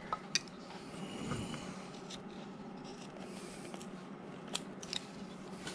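Carving knife slicing and scraping into a hard block of wood, a faint even cutting sound with a few small sharp clicks scattered through it.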